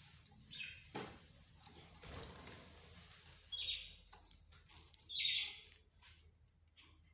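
Cage birds in a mixed aviary of budgerigars, lovebirds, zebra finches and canary: two short shrill calls, about three and a half and five seconds in, stand out over faint chirping, with scattered light clicks and rustles.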